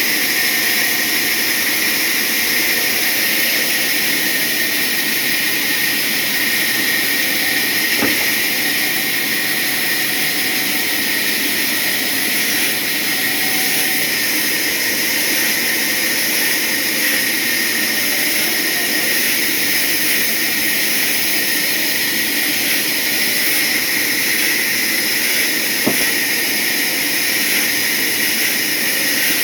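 Sawmill saw running steadily as it cuts a hardwood log, a loud, even machine whine with hiss that holds level throughout.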